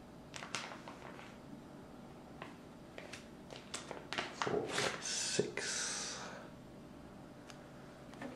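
Hands handling small plastic Lego parts and a sticker sheet: scattered light clicks and taps, then a short rustle about five seconds in.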